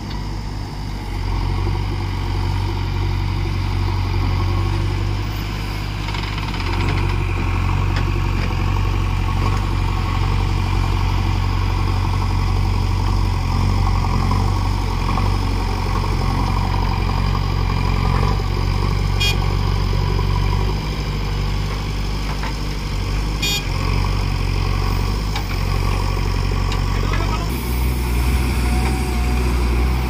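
JCB backhoe loader's diesel engine running under digging load, its note shifting as the hydraulic arm works. Two short high ticks come about two-thirds of the way through.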